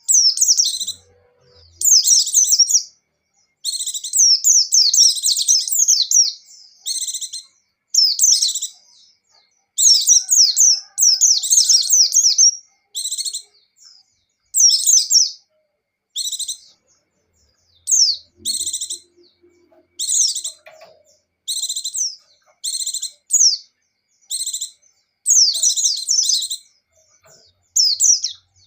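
A white-eye (pleci) sings in quick, high-pitched twittering phrases, each about half a second to two seconds long with brief pauses between, repeated again and again.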